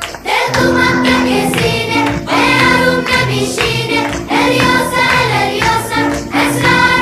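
Background music with a sung vocal line in repeated phrases over a steady beat.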